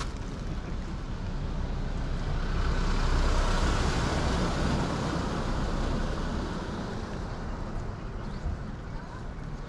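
An SUV driving past close by: its tyre and engine noise swells, is loudest about three to four seconds in, then fades away.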